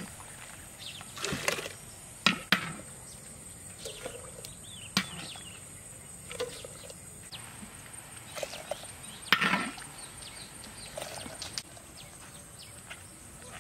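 Scattered sharp knocks and clatters of kitchen work, irregularly spaced, the loudest a longer clatter about nine seconds in. A faint steady high-pitched whine runs underneath.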